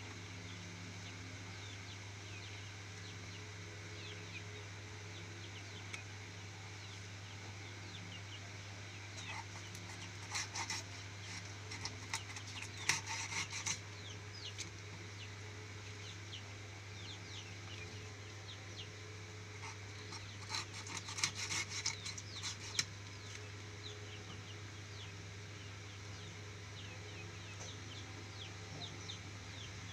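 Fish being scaled and cut with a blade: two spells of scraping and rasping, about ten and twenty seconds in, over a steady low hum, with frequent short high chirps from chickens or chicks.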